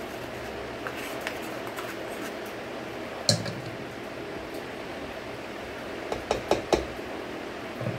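A spoon and a metal ladle knocking against a steel cooking pot as a ghee tempering is stirred into dal: one sharp clink about three seconds in, then a quick run of three or four clinks near the end, over a steady low hiss.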